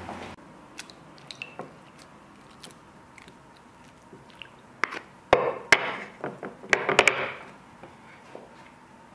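Two wooden butter paddles working butter in a ceramic dish: scattered sharp wooden clicks and knocks with short scrapes, busiest and loudest about five to seven seconds in.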